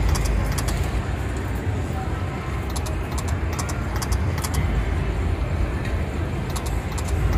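Konami video slot machine spinning its reels again and again, with clusters of short high clicks as the reels stop, over a steady low casino rumble.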